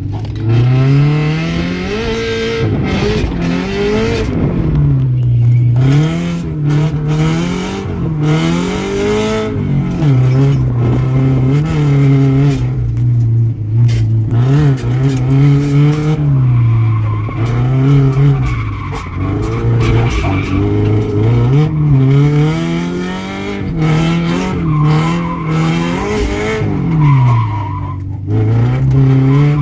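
Subaru BRZ's flat-four engine revving hard, its pitch climbing and dropping every second or two as it is driven through a drift, with tyres squealing and skidding.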